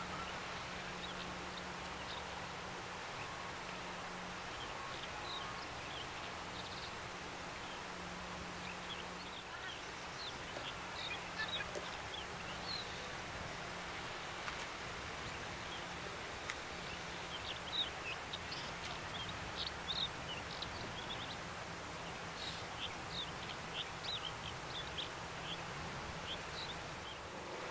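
Small birds chirping in many short, high notes, thickest in the second half, over a steady outdoor hiss and a low, steady hum.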